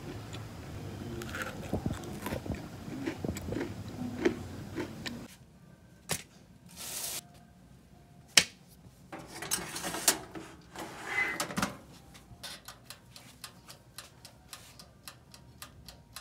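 Close-up eating sounds: a crunchy cookie being bitten and chewed, with crackly crumbs and mouth clicks. About five seconds in it turns quieter, with scattered sharp clicks and taps, a short hiss or two, and a quick run of clicks near the end.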